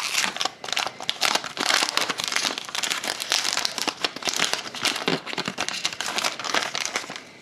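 Foil trading card pack being torn open and crinkled in the hands, a dense run of crackling that eases off near the end.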